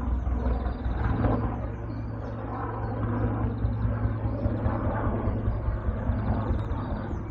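Sikorsky S-76 helicopter flying over: a steady low rumble of its rotors and twin turbine engines. Birds chirp faintly in the background.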